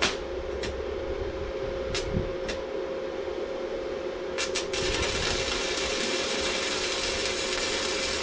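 Stick welding with the Stahlwerk MIG 135 M IGBT inverter welder in MMA mode: the electrode is struck on the steel with about six short sharp snaps as the arc fails to hold. About five seconds in, the arc catches and burns with a steady hiss, over a steady hum.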